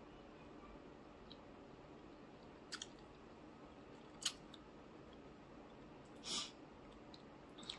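Faint close-up eating sounds: a few sharp clicks and, about six seconds in, a short crisp crackle as fingers pull apart battered fried flounder on the plate.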